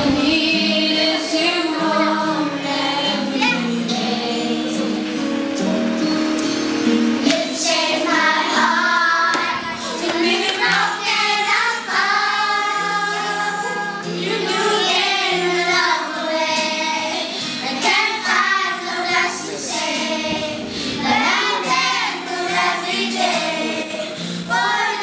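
A group of young girls singing a song together over musical accompaniment.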